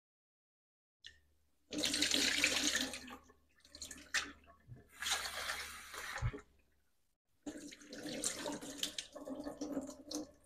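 Tap water running and splashing into a saucepan and a stainless steel sink as roasted mung beans are rinsed, in three stretches with short pauses between, the first the loudest.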